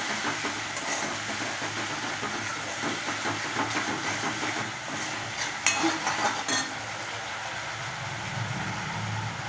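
Steel spoon stirring and scraping thick sauce around a steel kadai over a steady hiss, with a few sharper clanks of spoon on pan about six seconds in; then the stirring stops and only the steady hiss remains.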